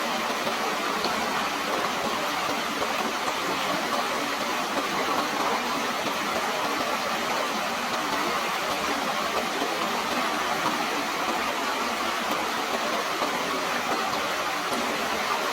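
Running water with a steady, even rush that holds without pause.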